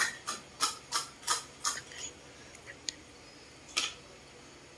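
Fingertips patting a paint-covered leaf down onto a sheet of paper: a quick run of light taps, about three a second, then a few scattered clicks.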